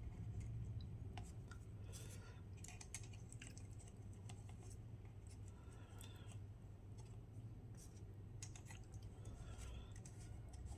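Faint scattered clicks and scrapes of small electronic parts being handled, over a steady low hum.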